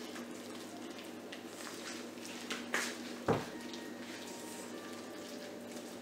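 Wooden spoon stirring batter in a stainless steel mixing bowl, with soft scrapes and clicks against the bowl. About three seconds in there is a single sharp thump as the bowl is set down on the wooden counter.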